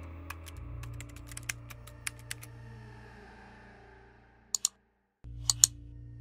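Typing on a computer keyboard, quick uneven keystrokes for about two and a half seconds, then a few sharper clicks near the end, over a steady low background music drone that drops out briefly about five seconds in.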